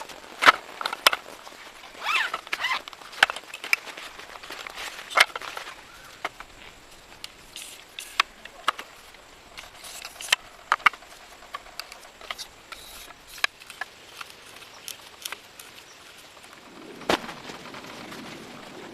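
Irregular sharp clicks and knocks, sometimes a few in quick succession, over a faint steady outdoor background, with one louder knock near the end.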